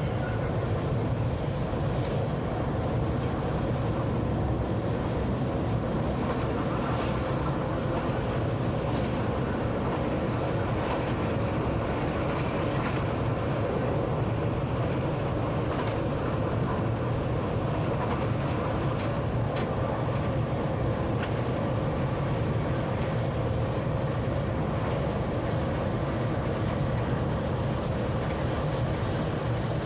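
Train running at speed along the track, heard from the driver's cab: a steady low rumble with a faint steady hum and an occasional faint tick.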